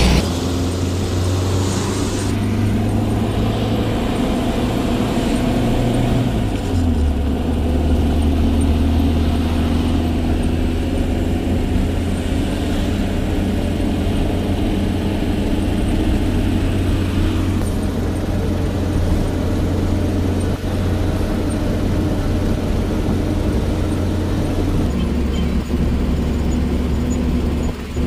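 A loaded truck's diesel engine running steadily under way, heard from inside the cab over road noise. Its low note drops about six seconds in and rises again near the end.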